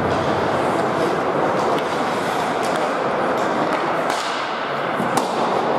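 Ice hockey game play in a rink: a steady wash of skating and arena noise, with a few sharp clacks of sticks and puck.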